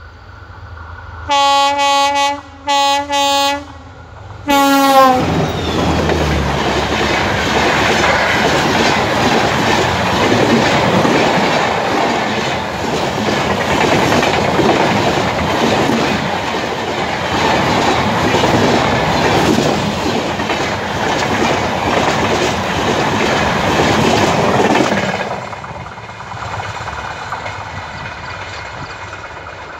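Express train passing at speed. The locomotive's horn sounds in several short blasts, and the last one drops in pitch as the locomotive goes by. The Rajdhani Express coaches then rush past loudly with a rapid clickety-clack of wheels over rail joints, and the noise drops away as the train recedes.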